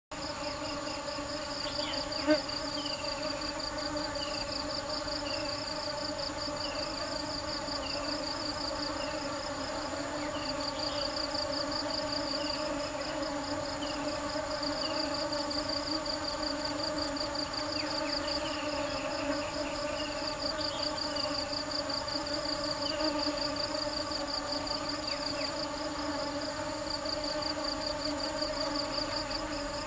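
Honeybees buzzing: a steady, even drone of wingbeats. Over it runs a high, pulsing insect trill, and short falling chirps come about once a second at times.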